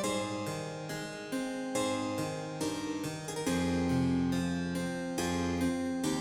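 Instrumental background music led by a keyboard, a steady run of notes over lower sustained tones.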